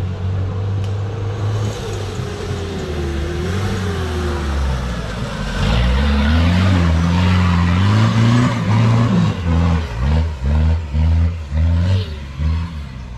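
An off-road race 4x4's engine revving hard as it comes up and slides through a dirt corner, loudest in the middle with a rushing hiss of tyres and flung dirt. Then the revs pulse up and down in quick repeated bursts, about every half second, as it climbs away.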